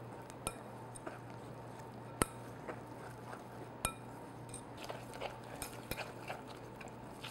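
Wire whisk clinking and scraping against a glass mixing bowl while beating a thick powdered-sugar and lemon-juice glaze by hand: quiet, irregular light ticks with a few sharper clinks.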